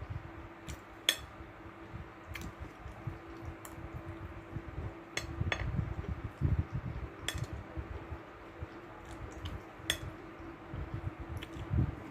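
Metal fork and knife clinking against a plate, about ten sharp, scattered clinks, with soft chewing sounds between them.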